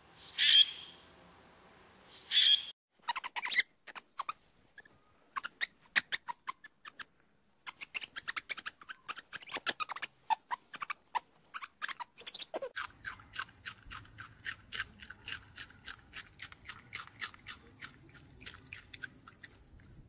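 Two short bird calls, then a long run of quick crisp clicks that grow dense and regular in the second half, with a faint low hum coming in: rabbits munching on fresh green stalks.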